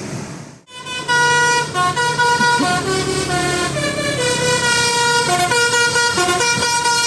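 Bus telolet horn, a set of air horns playing a quick melody of stepped notes, starting about a second in over road noise.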